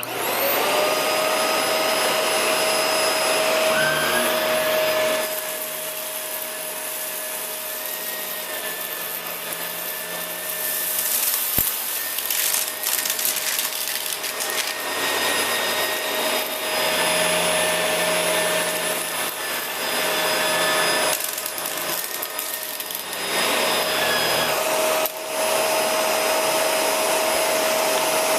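Shark Rotator upright vacuum cleaner switching on and running with a steady whine, vacuuming up sequins and cut-up styrofoam. Its level dips and returns a couple of times, and there are crackles and rattles around the middle as debris is sucked up.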